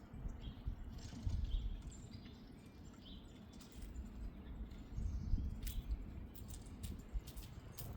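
Outdoor yard ambience: a few faint, short bird chirps in the first half, then a scatter of sharp clicks over the last couple of seconds, over a low rumble.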